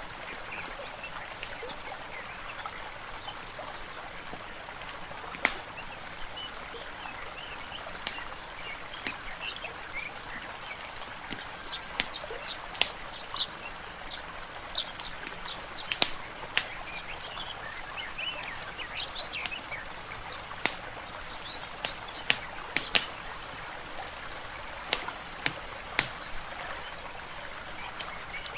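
Layered nature ambience: songbirds chirping over a steady hiss of lapping water, with the sharp, irregular pops of a crackling wood fire.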